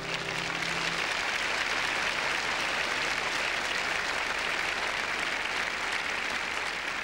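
Studio audience applauding at the end of a song, steady throughout, while the song's last held note dies away about a second in.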